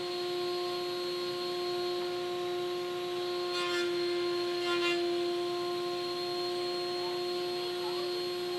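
A workshop machine's motor running with a steady, unchanging hum. About three and a half seconds in, a rougher, higher sound rides over it for about a second and a half.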